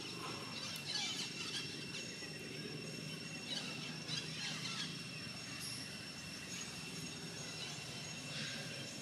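Outdoor ambience: a steady high-pitched whine with a low rumble beneath it, and short bursts of high, squeaky chirping calls about a second in, around four seconds, and near the end.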